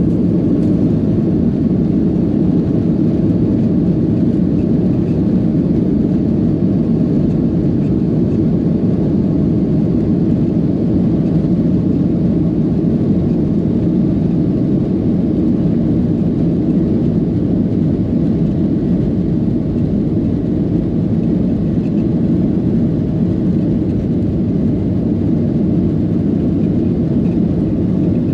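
Airliner's engines and rushing air, a loud steady low drone that holds even throughout, as the plane climbs after takeoff.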